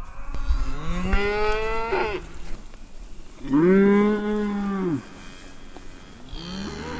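Belted Galloway cattle mooing: three long moos, the first rising in pitch about a second in, the loudest and steadiest from the middle, and another starting near the end.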